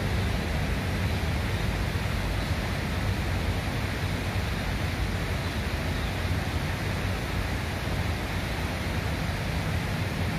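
River water flowing with a steady, even rushing.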